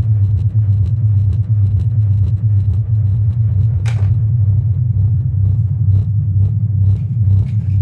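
12-inch subwoofer driven by a SOCL 504 power amplifier through an NE5532 low-pass subwoofer filter, playing the bass of music loudly: a heavy, steady low rumble with quick light ticks over it and a short rising swish about halfway.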